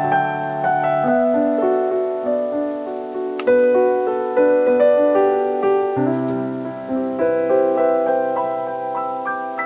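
Background piano music: a slow melody of sustained, overlapping notes.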